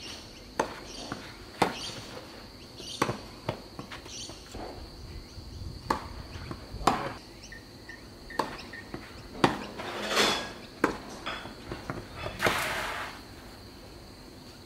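Tennis rally: sharp pops of rackets striking the ball and the ball bouncing, about one a second, with a couple of longer scuffing sounds about two thirds of the way in and near the end. A steady high-pitched insect trill runs underneath.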